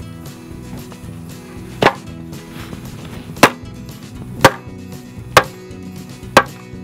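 Five sharp chopping blows into a wooden board, the first about two seconds in and the rest roughly a second apart, over steady background music.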